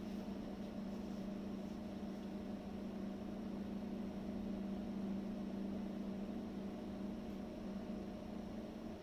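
Panasonic CW-P28CA2 window-type inverter air conditioner with its compressor running: a steady low hum that swells slightly near the middle. The owner takes this resonating drone for an abnormal compressor noise, likening it to someone riding a motorcycle in the room.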